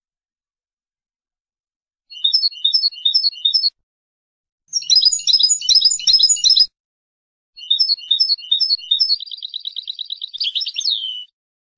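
European goldfinch singing in three bursts: a run of repeated high chirping figures, then a denser, louder twittering passage, then more chirping figures that run into a fast trill ending in a falling note.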